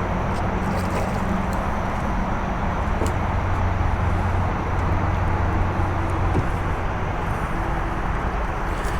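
Steady low mechanical hum under an even hiss, with a few faint clicks.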